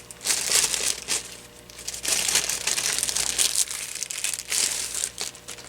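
Plastic packaging crinkling and rustling in several irregular bursts as a cordless phone handset is unwrapped and handled.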